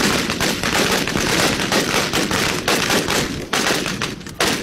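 Rapid automatic gunfire, shots following one another so closely that they run together into a continuous rattle, stopping abruptly shortly before the end.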